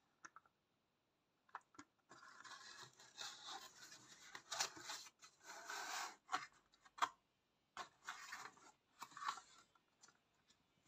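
Cardboard model box being handled: card rubbing and scraping against card and hands, broken by a few sharp clicks and taps. The sound starts about two seconds in and comes in uneven stretches until near the end.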